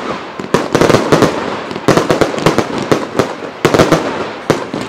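Aerial fireworks bursting in a rapid barrage: volleys of sharp bangs and cracks in quick succession, coming in clusters about once a second with brief lulls between them.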